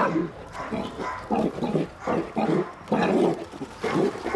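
Jindo dogs barking in quick, uneven bursts, several a second, as they attack a wild boar.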